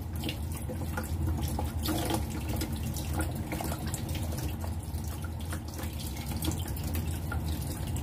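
Kitchen tap running steadily into a sink, the stream splashing over hands and mussels as they are rubbed clean under it.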